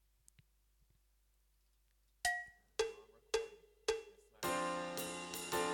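GarageBand metronome count-in: four sharp clicks about half a second apart, the first higher-pitched, after about two seconds of near silence. Then a jazz backing track with piano and drums starts playing back.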